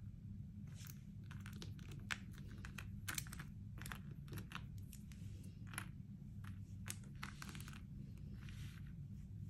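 Small letter tiles being picked up, slid and set down by hand on a mat, giving irregular light clicks and taps throughout, over a steady low hum.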